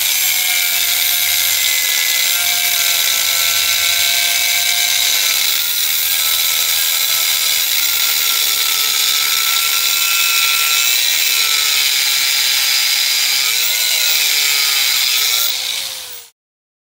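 Brushed 7.5-amp motor of a 4-1/2-inch angle grinder running under load as its cutoff wheel cuts, a harsh high-pitched grinding over the motor's whine. The whine's pitch sags and wavers as the wheel bites. The sound stops abruptly near the end.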